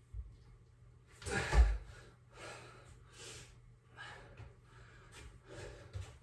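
A man breathing hard and gasping after a set of push-ups. A loud gasping breath with a low thump comes about a second and a half in, then a string of heavy breaths about once a second.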